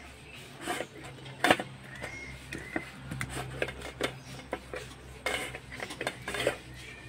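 Raw rohu fish steaks being picked up and turned by hand on a stainless steel plate, giving a string of irregular light clinks and knocks against the metal, the loudest about one and a half seconds in.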